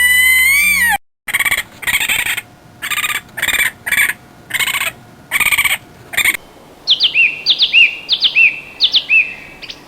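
A string of recorded animal calls. First a held, high, pitched call breaks off about a second in. Then comes a run of short harsh calls, about two a second, and near the end a bird's quick, looping chirps repeated about twice a second.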